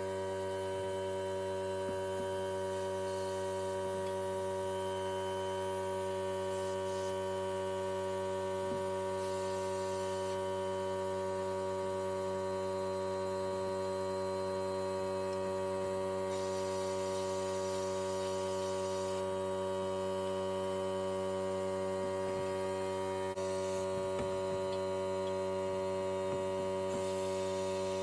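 Air compressor running with a steady electric hum. A few spells of hiss come and go over it, around the middle and near the end.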